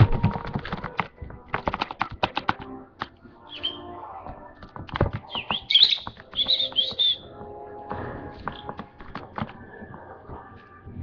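Pet lovebird giving a few short, high chirps in the middle, among many sharp taps and clicks.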